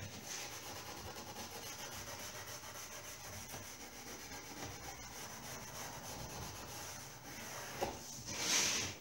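Pot-scrubbing pad rubbing back and forth on the wooden moulding of a gilded picture frame, scuffing the painted surface so new paint will take. A louder swipe comes near the end.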